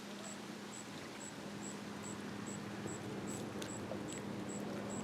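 Water lapping gently at the Green Bay shoreline, with an insect chirping in short, evenly spaced high-pitched pulses a little more than twice a second, over a steady low hum.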